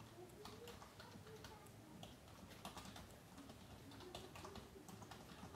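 Faint pencil on paper: a quick, irregular run of small scratches and ticks as short strokes are drawn.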